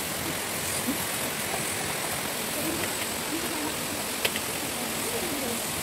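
Steady rush of water from a waterfall and the stream below it.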